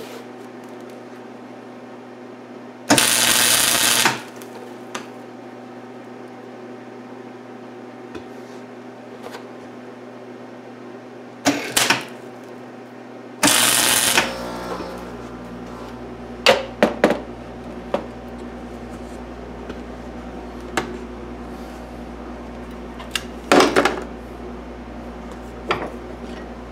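Wire-feed welder laying short tack welds on steel: a burst of arc noise lasting about a second, three seconds in, then two shorter bursts around twelve and fourteen seconds. A low steady hum starts with the last weld, and scattered clicks and knocks of metal follow.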